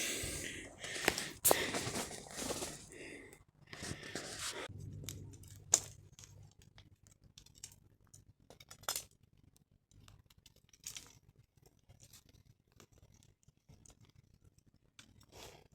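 Rustling and crinkling handling noises with scattered sharp clicks, busiest in the first few seconds and then sparse and faint.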